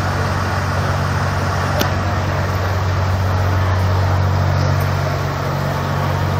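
Fire engines' diesel engines running steadily, a low, even drone with a rushing noise over it.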